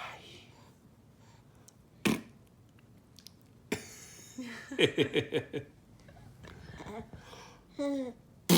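An adult making silly mouth noises for a baby: sharp puffs of breath, and a short stuttering run of pulsed, pitched sound about five seconds in.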